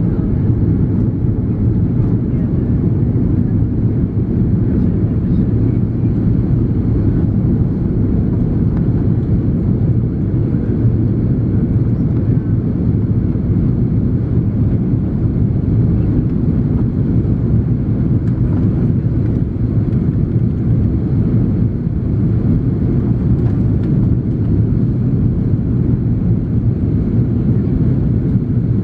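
Steady low roar inside the cabin of an Airbus A330-300 in flight, from its two Pratt & Whitney PW4168A engines and the airflow over the fuselage, during descent.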